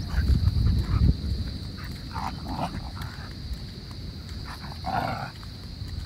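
A dog barking: two short barks about two seconds in and one more about five seconds in, over a steady high-pitched drone.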